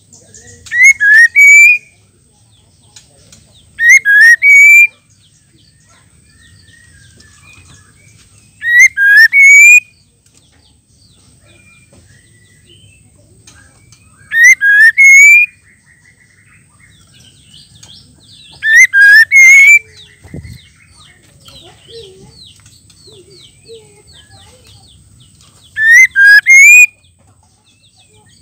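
Female white-rumped shama calling: six short, loud phrases of quick rising whistled notes, one every four to six seconds, with soft chirps in between.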